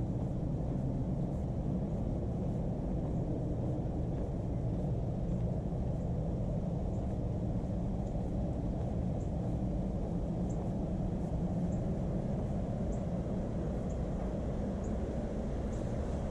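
Steady low outdoor rumble, even and unbroken. In the second half, a faint short high chirp repeats about once a second.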